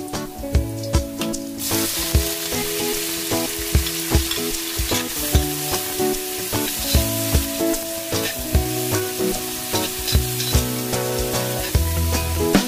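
Tomato wedges hitting hot oil in a stainless steel wok, a loud sizzle starting about a second and a half in and carrying on as a metal ladle stirs and scrapes them with ginger and garlic. Background music with a steady beat underneath.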